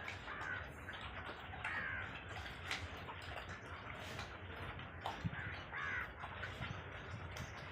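A few short, harsh animal calls, spaced several seconds apart, over a steady background rustle with scattered sharp clicks.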